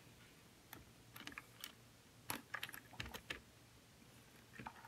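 Faint, scattered small clicks and taps of plastic building bricks as the assembled light-up brick toy truck is handled and picked up.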